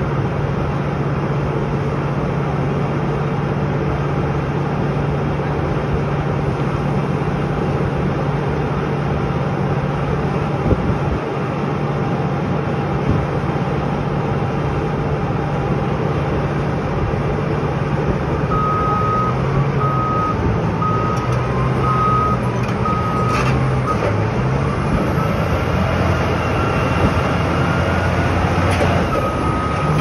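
Caterpillar D11 bulldozer's diesel engine running steadily under load. About two-thirds in, its reversing alarm starts beeping in a regular series of short high beeps, breaks off for a few seconds, and starts again near the end.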